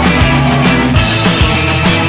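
Loud rock music with a steady, driving drum beat.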